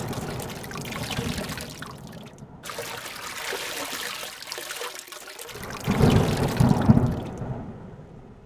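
Heavy rain and running floodwater, an even rushing hiss that drops out briefly about two seconds in. A louder low rumble swells about six seconds in, then the sound fades out near the end.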